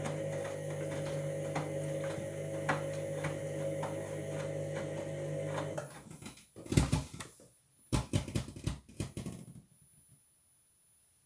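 Washing machine drum turning under the motor with a steady hum and light rapid ticking, a grinding that the owner takes for worn drum bearings. About six seconds in the motor cuts off, and a few loud knocks follow.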